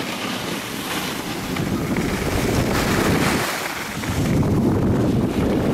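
Wind rushing and buffeting on the microphone of a camera moving downhill on a ski slope, over the hiss of edges sliding across packed snow. The low buffeting grows heavier about four seconds in.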